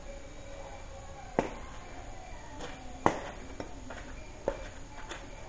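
Badminton rackets striking a shuttlecock in a rally: three sharp hits about a second and a half apart, with fainter ticks between them.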